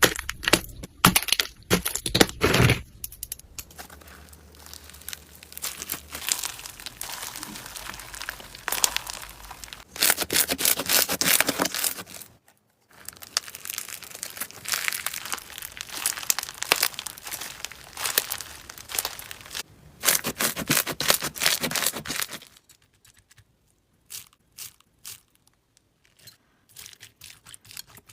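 Crunchy slime being squeezed and pressed by hand, with dense crackling and popping clicks in several separate stretches. Near the end it thins to scattered pops.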